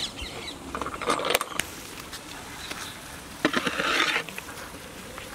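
A large metal spatula turning rice in a big aluminium pot, clinking and scraping against the pot's side. A few clinks come about a second in, and a longer spell of scraping comes a little past halfway.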